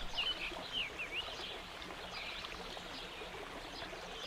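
Birds chirping in quick swooping notes over the steady rush of a flowing stream; the chirps die away about a second in, leaving the water.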